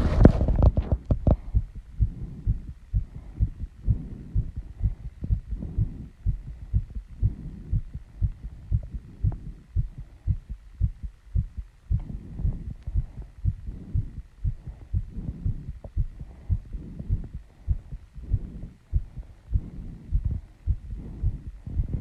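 A woman's fast heartbeat after running and squats: an even train of low lub-dub thuds, several a second. Her heavy breathing after the exertion swells softly behind the beats every couple of seconds.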